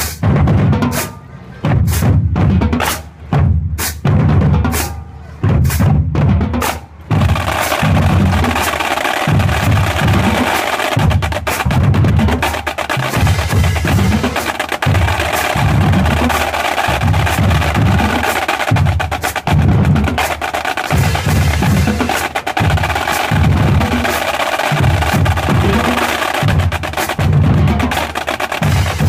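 High school drumline playing bass drums and snare drums. For about the first seven seconds there are sharp, separate hits with short pauses between them; after that the full line plays a continuous, dense groove over steady bass-drum beats.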